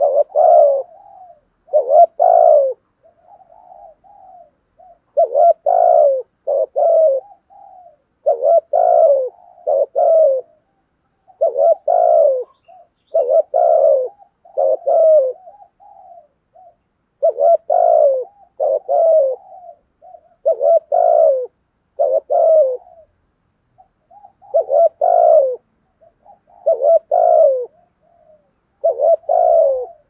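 Spotted dove cooing, loud and close: phrases of two or three coos repeated every two to three seconds, with short gaps between.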